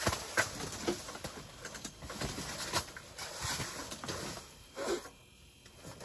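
Boots crunching and scuffing on snow-covered ice and the quilted fabric of a pop-up ice fishing shelter rustling as someone steps out through its door, in a run of irregular crunches and light knocks.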